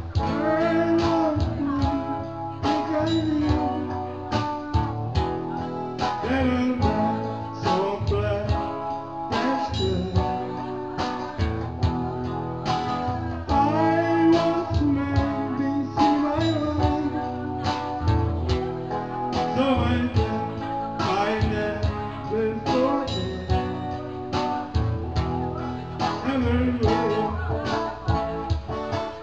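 Live pop-country music from a small duo: guitar strumming over a steady beat, with a melody line on top.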